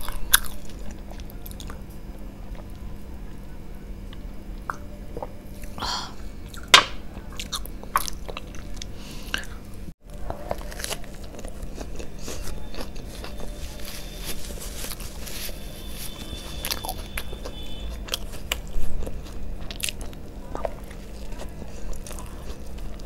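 Close-up eating sounds: chewing and crunchy bites, in the second half into a fried chicken burger. The sound breaks off briefly about ten seconds in.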